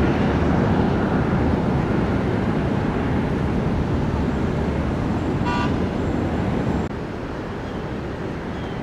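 Aircraft engines at takeoff power on the runway, a loud steady rumble that slowly eases, with a short pitched toot about halfway through. The level drops abruptly about seven seconds in.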